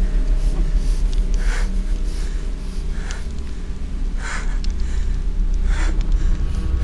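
A person breathing hard: four sharp breaths about a second and a half apart, over a low steady hum.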